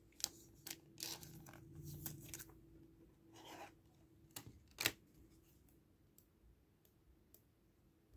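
Faint scraping and rustling of a chrome trading card being handled and slid into a clear plastic top loader, with scattered light clicks. The sharpest tap comes about five seconds in.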